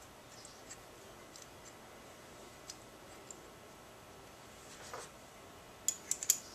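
Faint clicks and light taps of small metal carburetor parts and hand tools being handled on a bench, with a knock about five seconds in and a quick cluster of sharper clicks near the end.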